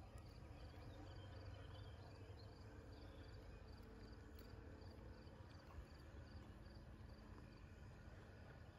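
Near silence: faint insect chirping, a steady, even train of high-pitched chirps about two to three a second.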